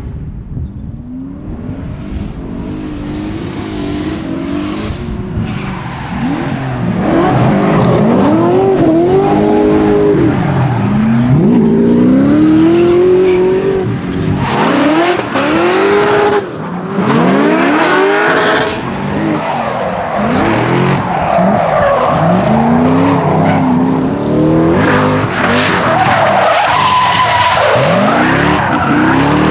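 Drift cars sliding through a corner, engines revving up and down over and over as the throttle is worked, with tyres screeching. The sound builds over the first several seconds as the cars come closer, then stays loud.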